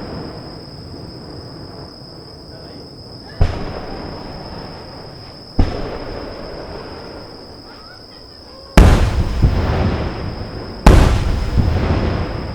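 Aerial firework shells bursting: two lighter bangs about two seconds apart, then two much louder booms about two seconds apart, each trailing off in a long rolling echo. A steady high insect trill runs underneath.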